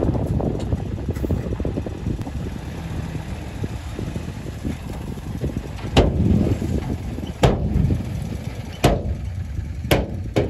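Heavy excavator's diesel engine running with a steady low rumble, with four sharp knocks in the second half.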